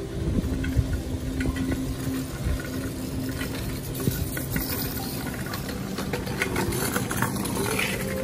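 Kick scooter wheels rolling along a paved path, a steady low rumble with scattered small clicks and knocks.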